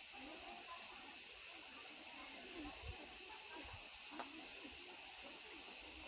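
A steady, high-pitched chorus of insects, with a couple of faint low thumps near the middle.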